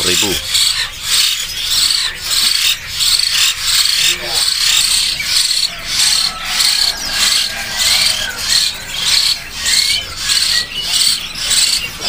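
A loud, rhythmic rasping noise, about two to three strokes a second, with a few faint bird chirps over it.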